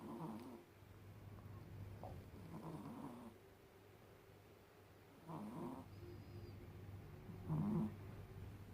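Sleeping cat snoring: a short rough snore about every two to two and a half seconds, four in all, the last the loudest, over a steady low hum.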